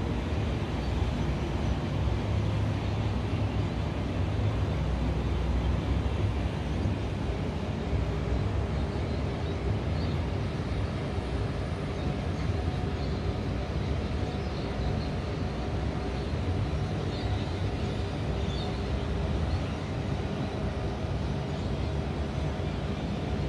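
Steady low city hum of distant traffic. Faint steady tones come in about a third of the way through, and faint high chirps sound in the middle.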